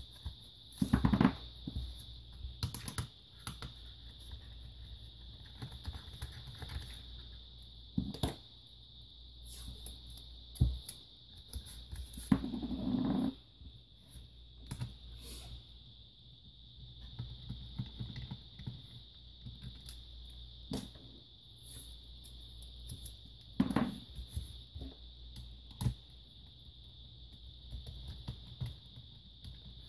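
Scattered small clicks and taps of a screwdriver and hands working the screws and plastic case of a Toshiba Portege M780 laptop, with a house cat calling a few times. A faint steady high-pitched whine runs underneath.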